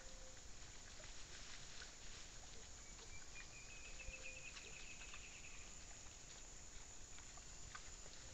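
Faint scattered clicks and rustles of a group of peccaries rooting and chewing in dry leaf litter, over the steady hiss of a trail camera's microphone. A faint high rapid trill runs for a couple of seconds about three seconds in.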